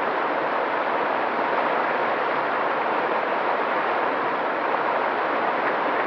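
Mountain stream flowing over rocks: a steady, even rush of water with little deep rumble.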